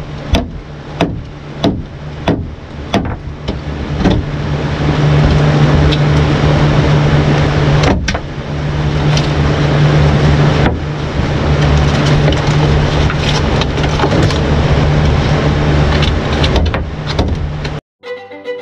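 A few sharp knocks, then a handheld power tool running steadily under load while cutting into the hull's fiberglass and rotten wood, with two brief pauses. It cuts off suddenly near the end, and violin music begins.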